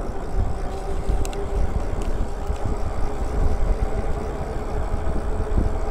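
Wind buffeting the microphone while riding a fat-tyre electric bike along pavement, a steady low rumble with a faint even hum underneath.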